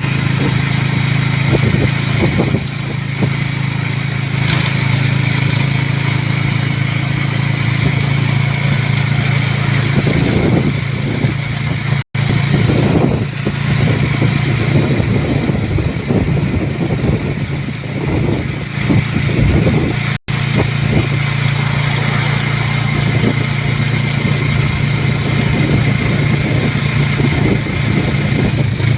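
A motor vehicle's engine running steadily while travelling along a road, with wind buffeting the microphone. The sound cuts out briefly twice.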